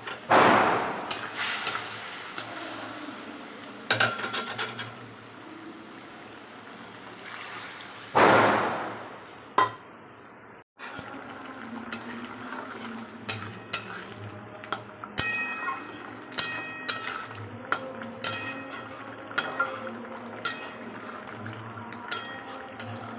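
Two firecracker bangs with a trailing echo, about a second in and again about eight seconds in. After that, repeated short clinks of metal utensils against pots and dishes, some ringing briefly.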